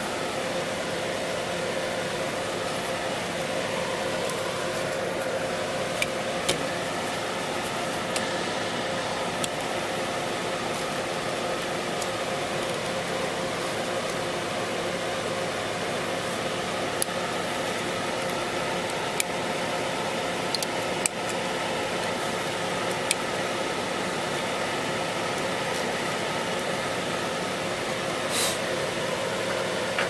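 Steady mechanical hum with a few light, sharp clicks scattered through it as small plastic tablet parts and a plastic pry tool are pressed and handled.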